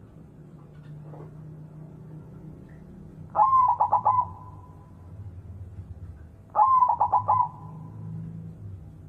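White perkutut (zebra dove) cooing: two song phrases, about three and a half and six and a half seconds in. Each is a quick stuttering run of notes that ends in a drawn-out note.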